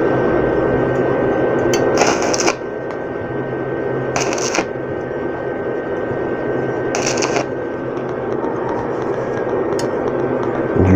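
Arc welding on stainless-steel pipe: the arc crackles steadily, with three short, louder bursts about two, four and seven seconds in.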